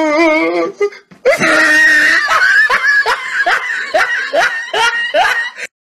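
Someone laughing hard in a high voice, in short rising bursts about two or three a second, cutting off suddenly near the end.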